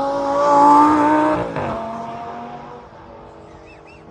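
A sports car's engine passing at speed. Its note climbs and grows louder for about a second, drops in pitch as the car goes by, then fades away.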